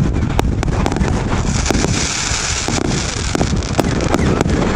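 Aerial fireworks going off in quick, irregular cracks and bangs, with a stretch of dense crackling hiss about a second and a half in. Wind rumbles on the microphone throughout.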